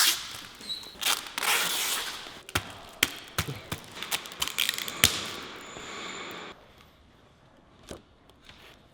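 Tape being pulled off the roll in rasping strips, mixed with sharp clicks and knocks from handling the board, the loudest knock about five seconds in; it goes quieter for the last couple of seconds.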